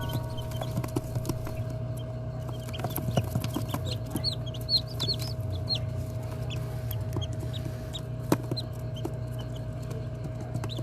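Chickens clucking, with many short, high peeps over a steady low hum. A sharp click comes about eight seconds in.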